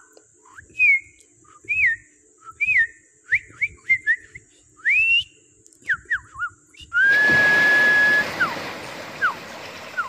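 A series of clear whistled notes, about one a second, some sliding down and some sliding up in pitch. About seven seconds in, the rush of water surging between rocks starts abruptly underneath, and the whistling carries on over it, with one note held steady for about a second.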